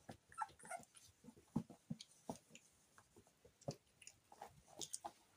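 Faint sounds of four-week-old puppies play-wrestling: irregular soft knocks and scuffles, with a few tiny squeaks and whimpers near the start.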